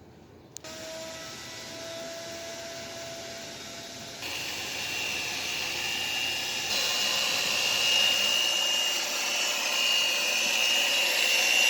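A motorised tool starts abruptly and runs steadily. It gets louder in two steps, with a high steady whine joining in partway through.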